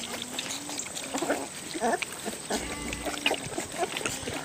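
A litter of puppies lapping and slurping milk from shallow metal pans: a busy, irregular patter of small wet clicks and splashes.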